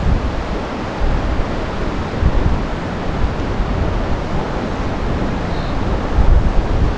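Wind buffeting the microphone: a steady rushing rumble, heaviest in the low end, rising and falling in gusts.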